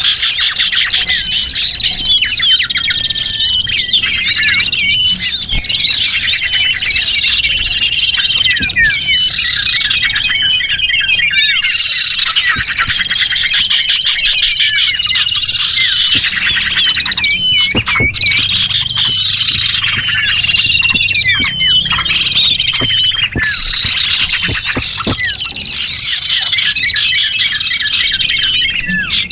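Many small birds chirping and twittering at once, a dense, unbroken chorus of quick high calls and trills: a lure recording used to draw in small wild birds.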